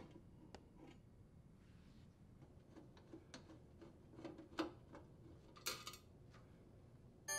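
Faint, scattered clicks and ticks of a Phillips screwdriver working screws out of a sheet-metal junction box, over near silence. A chime starts right at the end.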